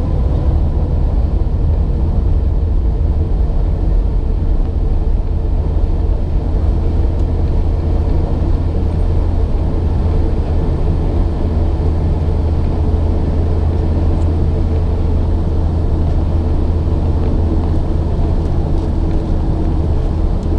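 Airplane engine noise: a loud, steady drone with a constant low hum and a few fainter steady tones above it, unchanging throughout.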